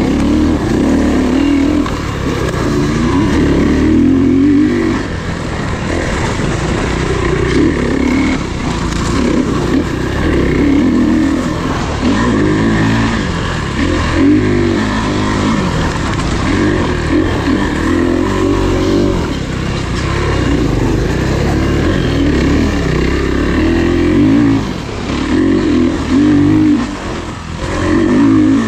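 Off-road racing engines revving up and backing off again and again as the riders race the course, in surges every second or two.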